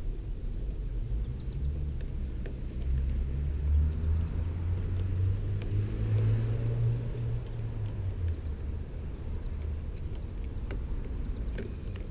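A car passing on a nearby road: a low rumble that swells toward the middle and fades away, over a few faint small clicks from a screwdriver at work on screws.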